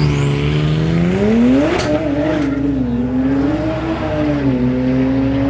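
Twin-turbo Audi R8 V10 engine running at low speed as the car creeps forward. The revs rise briefly about a second and a half in, then settle into a slightly wavering fast idle. A high whistle rises over the first second or so, and there is one sharp crack just before the revs peak.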